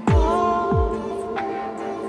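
Electronic background music: held synth chords with deep bass hits that drop in pitch, two of them, one at the start and one just under a second in.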